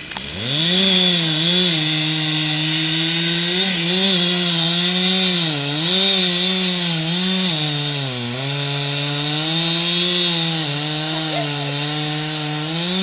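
Petrol chainsaw revved to full throttle and cutting through a standing pine trunk, its pitch dipping briefly several times as the chain loads up in the wood, then dropping off near the end. This is the felling cut that brings the tree down.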